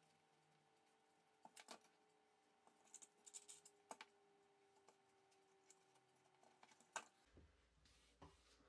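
Near silence with faint handling noises: a few soft clicks and taps as paper and wooden press boards are handled, and one sharper knock about seven seconds in.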